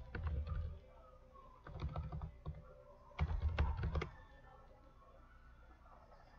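Typing on a computer keyboard in three short bursts of clicks and thuds, about a second apart.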